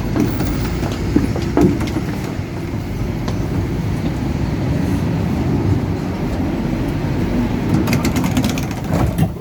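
Tram running along the rails: a steady low rumble of wheels and motors, with a few clicks about a second and a half in and a cluster of sharp clicks and rattles near the end.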